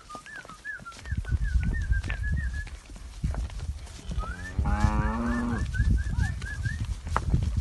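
Cow mooing once, a single long low call starting about four seconds in. Underneath are low rumbling and knocks, and two runs of quick, high repeated chirps.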